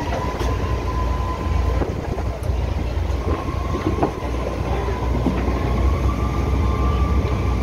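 Tour boat's engine running with a steady low rumble and a faint whine that rises slightly after the middle.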